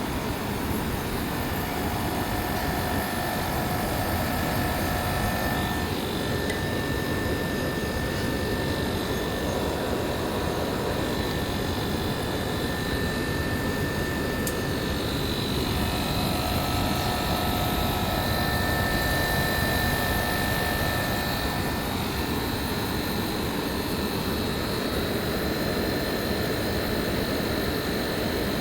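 Air conditioner outdoor unit running steadily during refrigerant gas charging, with a constant fan-and-compressor noise and faint whining tones that fade in and out.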